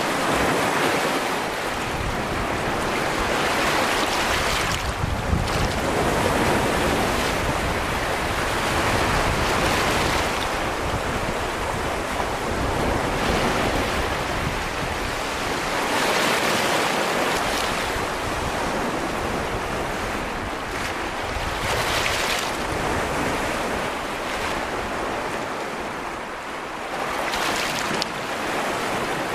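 Small Baltic Sea waves breaking and washing in over a stony beach of pebbles and boulders: a continuous wash of surf that swells every few seconds as each wave comes in.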